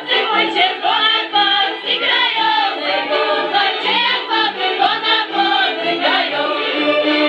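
A large group of women singing a highland folk song together in chorus.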